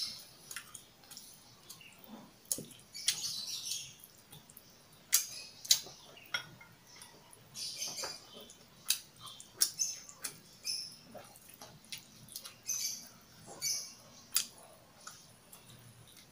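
Close-miked mukbang eating of kimchi ramen: brief hissy slurps of noodles and broth, wet chewing and lip smacks, with many short sharp clicks scattered throughout.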